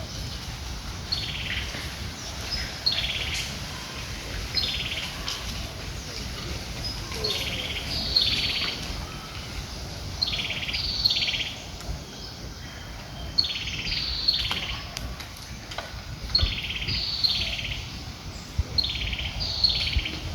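A bird calling in short, buzzy notes that fall in pitch, given in groups of two or three every two to three seconds, over a steady low rumble.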